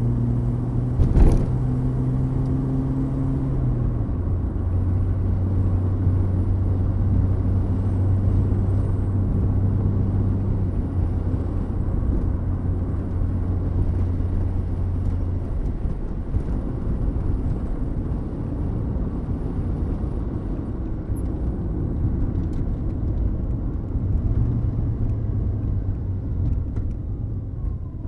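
1979 Mercury Zephyr sedan running, with a steady engine hum over a continuous rumble. A sharp click comes about a second in. The engine note steps down in pitch about four seconds in and fades out about halfway through, and a falling tone comes near the end.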